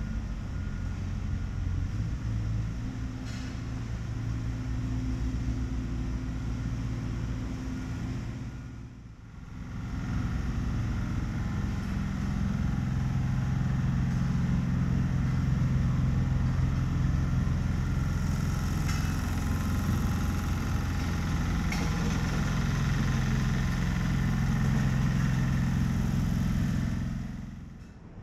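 Steady low rumble of motor traffic engines, with held low tones that shift every few seconds. It fades out and back in about nine seconds in.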